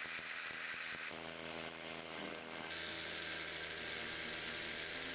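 Hilti rotary hammer drilling into concrete: a steady hammering motor sound that shifts abruptly about a second in and again near three seconds in as the shots change.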